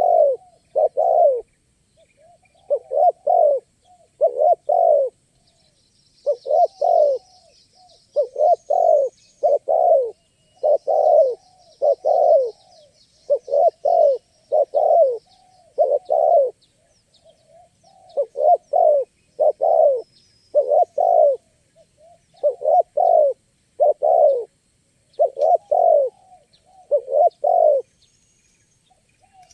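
Spotted dove (tekukur) cooing over and over in short phrases of two or three deep notes, one phrase every second or two, stopping near the end. Faint high chirps of small birds sound behind it.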